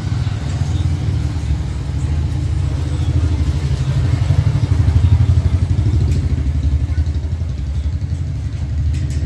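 A motor vehicle engine idling nearby, a steady low throb that swells a little around the middle.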